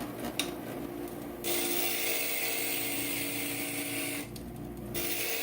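Inland stained-glass grinder running, with the edge of a glass piece pressed against its bit to shave off a little where the piece is hitting: a grinding hiss starts about a second and a half in over the steady motor hum, breaks off briefly near the end, then starts again.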